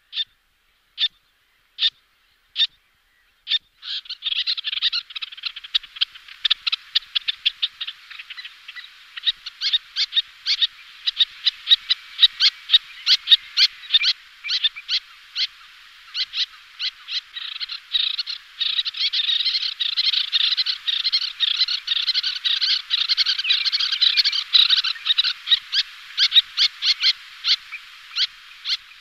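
Little terns calling: a few single sharp calls about a second apart, then from about four seconds in a dense, rapid chatter of overlapping calls from several birds, two pairs displaying in flight.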